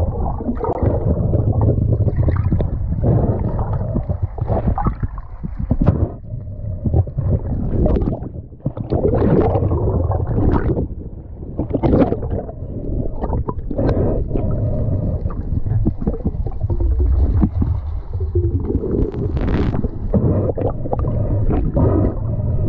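Muffled underwater noise as heard through a camera held underwater: steady water rush and gurgling with a low rumble, and frequent knocks and clicks from handling.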